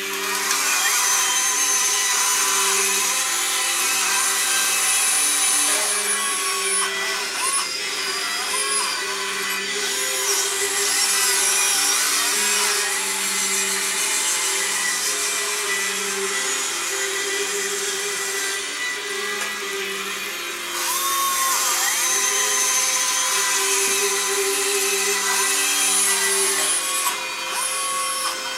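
Electric motors and gearing of a radio-controlled model dragline whirring, the whine rising and falling in pitch as the boom swings and the bucket is worked.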